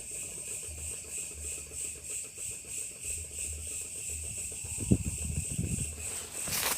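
Insects chirping in a steady, finely pulsing high drone. A few low thumps, sharpest about five seconds in, sound under it.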